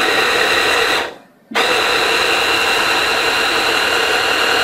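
Savisto 750-watt hand blender motor driving its chopper bowl attachment, chopping chickpeas, with a high whine over the motor noise. It runs about a second, stops for about half a second, then starts again and runs steadily.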